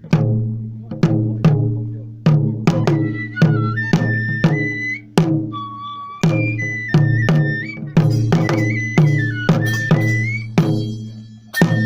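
Japanese festival music: a deep drum beaten in a steady pattern, each stroke ringing on, with a high flute melody joining about two and a half seconds in.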